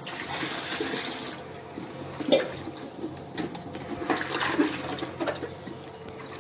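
Water pouring into a plastic water-purifier storage tank and sloshing and splashing as a hand scrubs around inside it, with the pouring loudest at first and irregular splashes after.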